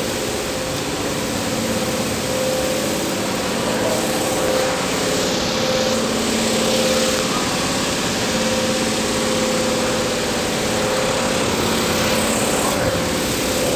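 An engine running steadily, with an even hum that holds its pitch.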